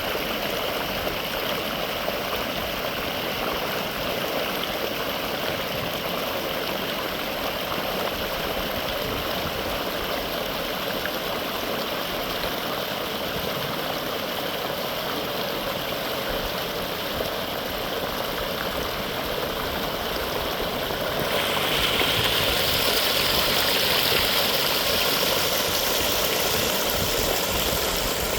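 Mountain stream of rainwater flowing and rushing steadily. About three quarters of the way in, the rush turns louder and hissier.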